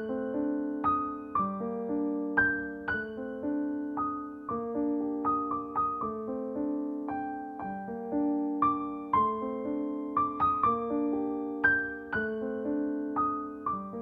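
Gentle piano music: slow, flowing notes, each struck and left to ring and fade.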